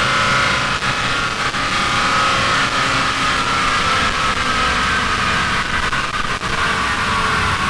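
Big-turbo Toyota 2JZ-GTE engine running steadily at low revs on the dyno after its pitch has dropped from a run, under a steady rush of air from a large dyno cooling fan. A few light ticks come about a second in and again near the end.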